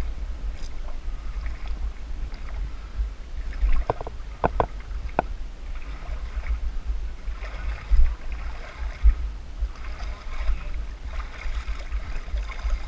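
Muddy pothole water sloshing and splashing in uneven spells as a person moves through it, over a steady low rumble on the microphone. A few sharp clicks come close together about four to five seconds in.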